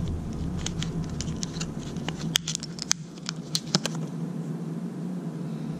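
Scattered light clicks and taps of a small gold coin and its packaging being handled, irregular and several loud ones in the middle stretch.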